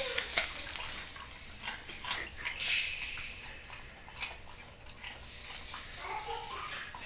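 German shorthaired pointer crunching and chewing raw carrot, with sharp, irregular crunches in quick succession that thin out after about three seconds.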